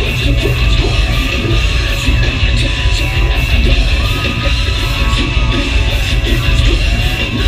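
Heavy metal band playing live and loud: driving drums and heavy low end, with yelled vocals.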